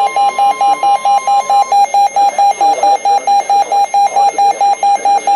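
Weather alert radio alarm beeping rapidly, about five beeps a second. A steady higher warning tone sounds with it and stops about a second and a half in.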